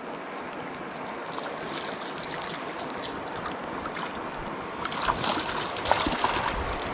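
Steady rushing of river water. A low rumble and a few faint knocks come in for the last two seconds.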